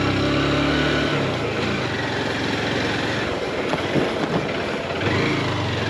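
Motorcycle engine running under load on a hilly dirt road, its pitch dropping about a second in and rising again near the end, over wind and road noise.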